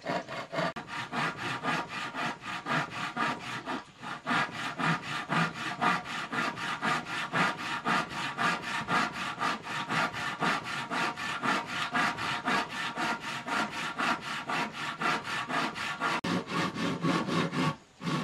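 Hand saw cutting through an old wooden board in quick, steady back-and-forth strokes, pausing briefly about four seconds in and again near the end.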